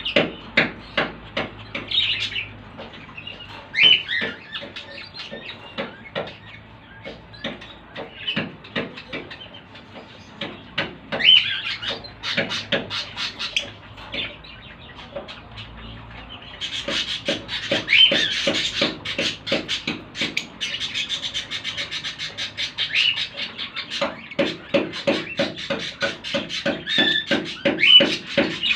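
Lovebirds chattering: a dense run of quick chirps with shrill calls every few seconds. The chatter gets busier partway through.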